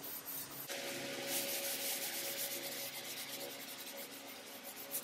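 Sandpaper rubbed by hand over the 2K primer on a steel panel in repeated back-and-forth strokes. The sanding grows louder about a second in. This is 320-grit block sanding to level the primer.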